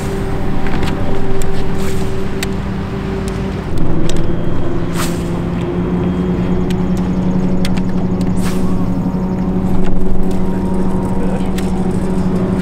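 Steady hum of a boat motor, growing stronger about six seconds in, with scattered light clicks and knocks on the boat.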